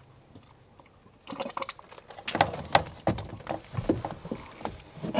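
Irregular clicking, crackling and rustling of hands handling hose and fittings while a siphon is set up to feed water into the diesel's raw-water intake. It starts after about a second of quiet.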